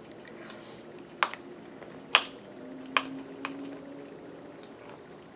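A metal spoon clinking against a bowl of yogurt and granola: four sharp clicks roughly a second apart, the second one the loudest.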